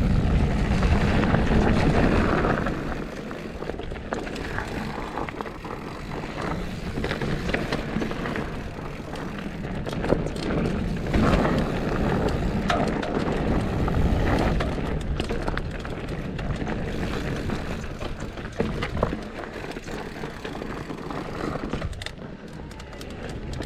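Mountain bike riding down dirt singletrack: wind rushing over the microphone and knobby tyres rolling on dirt, with frequent rattles and knocks from the bike over bumps.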